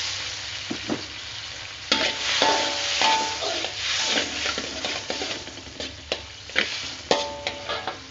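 Metal spatula scraping and clanking against a metal wok while stir-frying, the sharp strokes ringing briefly. Under the first strokes, water just added to the hot oil sizzles with a hiss that dies away over the first second or so.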